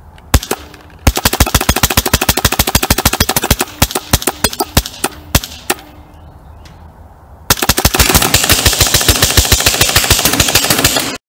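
Paintball gun firing rapid strings of shots, several a second. A single shot comes first, then a long string, then after a short pause a louder, denser string that cuts off suddenly near the end.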